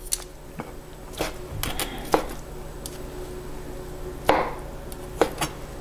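Chef's knife dicing boiled and grilled pork on a plastic cutting board: irregularly spaced knocks of the blade through the meat onto the board, the loudest about four seconds in.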